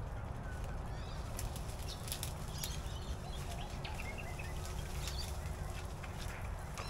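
Tarp being packed up, its fabric rustling and crinkling in short, scattered bursts, over a steady low rumble with a few faint bird chirps.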